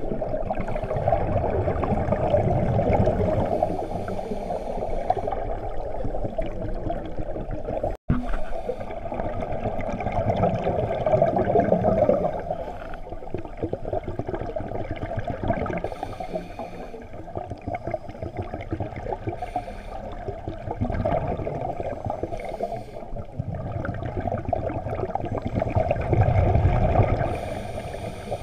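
Muffled underwater noise heard through a camera's waterproof housing: a steady, fluctuating rushing and gurgling of water, with scuba divers' exhaled bubbles. It cuts out for an instant about eight seconds in.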